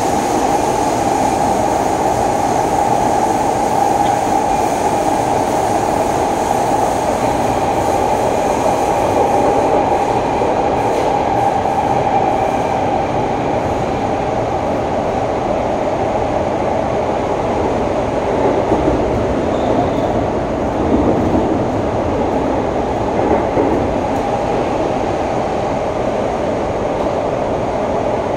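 SMRT C651 metro train heard from inside the passenger car, running steadily between stations: a continuous rumble of wheels on rail and running gear at an even level.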